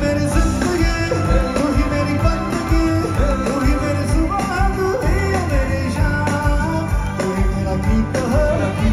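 Live band music through a concert PA, heard from within the crowd: drums and bass keep a steady pounding beat under a sung or played melody.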